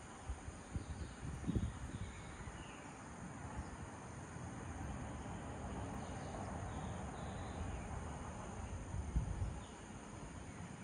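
Dawn ambience in the tropics: a steady high-pitched insect chorus, with scattered short falling bird chirps over it. Low rumbling bumps about a second and a half in and again near the end.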